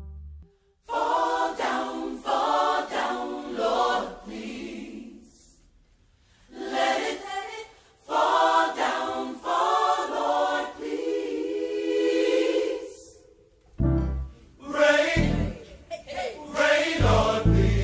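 Gospel choir singing in separate phrases, unaccompanied at first. A deep bass beat comes in about three-quarters of the way through.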